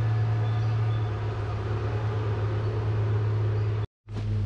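Steady low drone of a heavy diesel engine from logging equipment running nearby. It cuts out for a split second near the end, then comes back.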